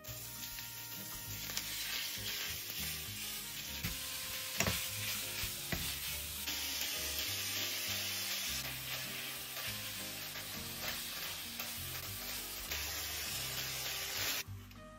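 Food sizzling steadily in a hot frying pan, with a few sharp clicks of stirring. The sizzle cuts off suddenly near the end.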